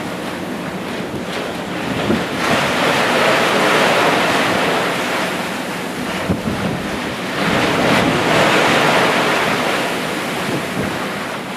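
Open-ocean waves with wind, a steady rushing wash that swells twice and eases again.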